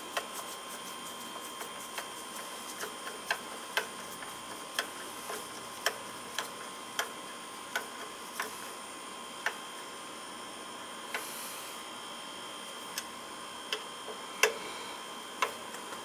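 Irregular light clicks and ticks from gloved hands handling the wiring and conduit on an oil furnace, one or two a second with a louder click near the end, over a steady hiss and faint high whine.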